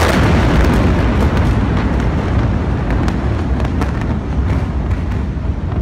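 Rumble of a massive chemical warehouse explosion, with scattered sharp pops and crackles through it, easing off slowly.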